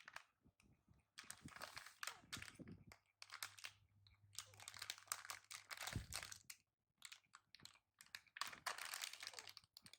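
Crinkling and crackling of a jelly snack's plastic wrapping as it is handled and peeled, in three bursts of a second or more each with short pauses between.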